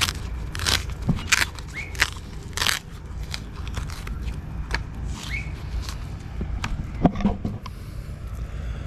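Blue Java banana being torn open and its skin peeled back by hand: a series of short tearing sounds, several in the first three seconds, then more a little past the middle and near the end.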